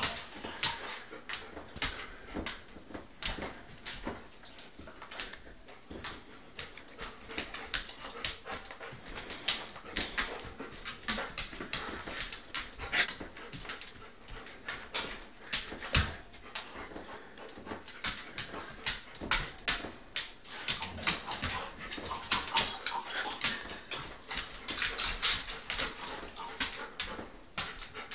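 A dog's claws clicking and skittering on a vinyl kitchen floor as it scrambles after light spots, with excited whimpering, busiest about three quarters of the way through.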